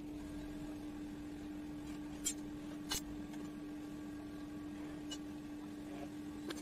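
A few sharp clicks and taps from a cordless drill and small screws being handled against aluminium trim on a plywood box, two close together about two and three seconds in, one more past five seconds and one near the end, over a steady hum.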